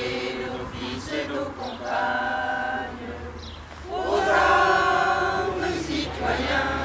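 A group of people singing together in held notes, growing louder about four seconds in.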